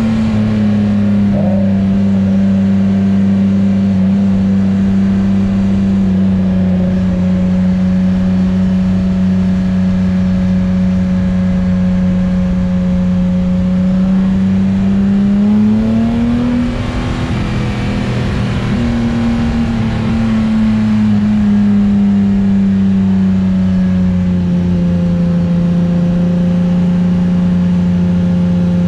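Nissan VQ35DE V6 in a Datsun S30 Z running at a steady cruise. The engine note rises briefly a little past halfway, then settles a little lower toward the end.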